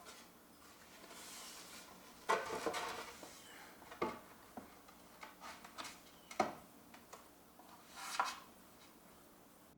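Wooden trim boards being handled and fitted: scattered knocks and clatters of wood on wood, with a short rubbing hiss about a second in.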